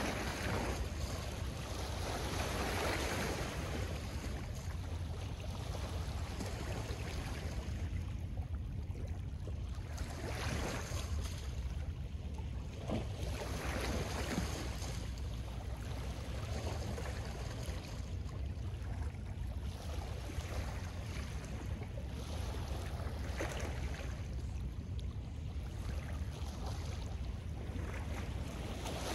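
Small lake waves washing onto a pebble and ice shore, one rush of water every few seconds, over a steady low rumble of wind on the microphone.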